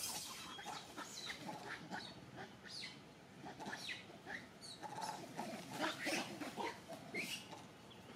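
Macaques calling: a scattering of short squeaks, chirps and grunts coming irregularly, several overlapping, with a busier patch of lower grunts about five to six and a half seconds in.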